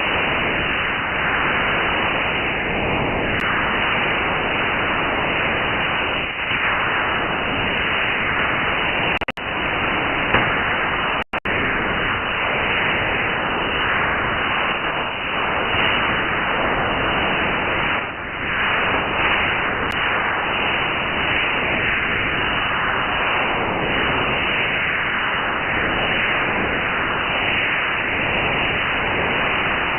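Radio receiver audio of a steady hiss-like signal, an unidentified transmission that sounds like noise but may carry data. The sound is limited to the receiver's narrow audio bandwidth, and it cuts out briefly twice, about nine and eleven seconds in.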